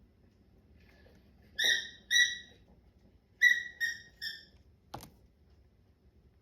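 A dog's squeaky toy squeaking five times in short high squeaks, two and then three in quick succession, followed by a single sharp click.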